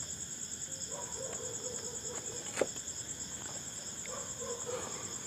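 Crickets chirping steadily in a high, pulsing trill, with one sharp click about two and a half seconds in.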